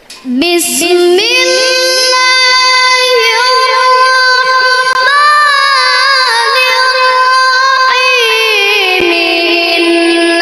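A young boy qari reciting the Quran in melodic tilawah style. Starting about half a second in, he sings one long phrase of held, ornamented notes that wavers up and down and settles on a lower note near the end.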